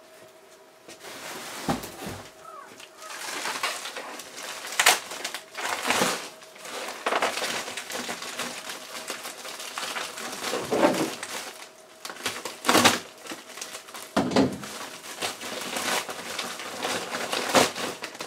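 Plastic mailing bag rustling and crinkling as it is handled and opened, with irregular sharp crackles.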